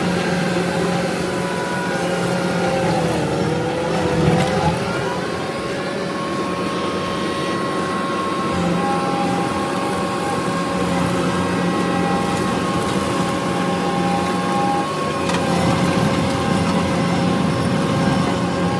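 Kubota SVL65 skid steer running at working speed, its diesel engine and hydraulics giving a steady drone with high whining tones over it. The pitch dips briefly about three seconds in and comes back up.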